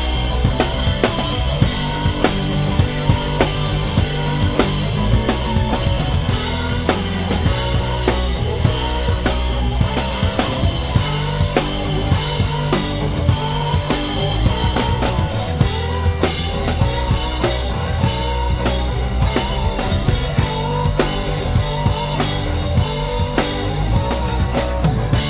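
Live rock band playing, with the drum kit up front: a steady groove of kick drum, snare and cymbals, over held bass notes and electric guitar.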